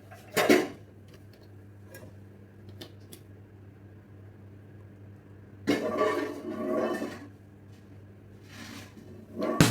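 Kitchenware being handled over a low steady hum. There is a sharp knock about half a second in, a few light clicks, and then about a second and a half of clattering.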